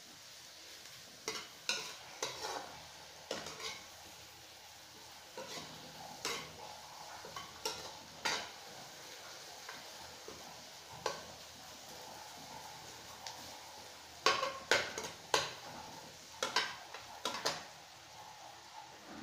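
Sliced onions and garlic sautéing in oil in a non-stick wok with a faint steady sizzle, while a metal spoon scrapes and clicks against the pan in irregular spells of stirring.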